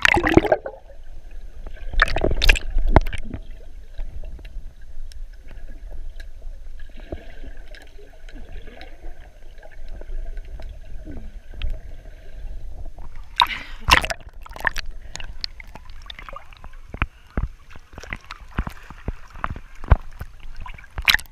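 Pool water splashing and sloshing against a camera held at the surface, which goes under for a stretch of muffled underwater sound. A loud splash comes about two thirds of the way through as it breaks the surface, followed by waves lapping and crackling against the housing.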